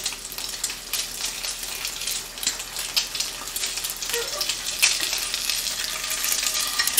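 An egg sizzling as it fries in a pan, with a wooden spatula scraping and tapping against it now and then.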